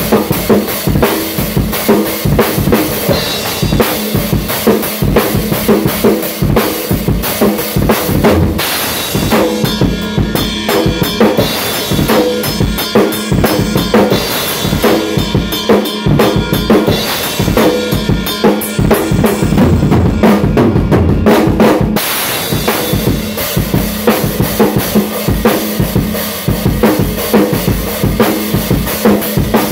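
Acoustic drum kit played fast and hard, with quick bass drum and snare hits under crashing cymbals. The cymbal wash drops away about eight seconds in, leaving drums and lighter hits, and comes back about two thirds of the way through.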